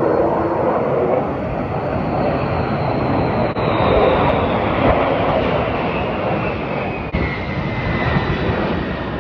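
Military jet aircraft flying over in formation: a steady, loud roar of jet engines with a high whine that slowly falls in pitch as they pass.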